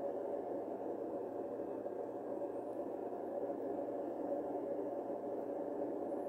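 Steady background noise with a faint hum, at an unchanging level and with no distinct event: room tone under the commentary microphone.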